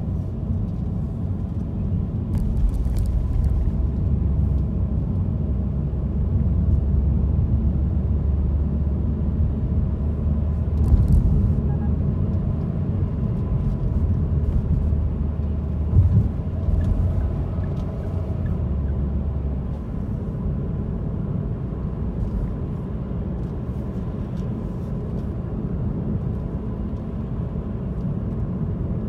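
Car driving, heard from inside the cabin: a steady low rumble of engine and tyres on the road, with a couple of brief knocks partway through.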